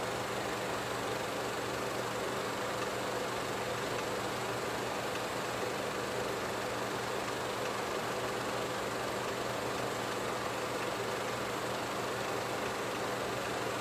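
A steady low hum of several tones under an even hiss, unchanging, with no voices or music.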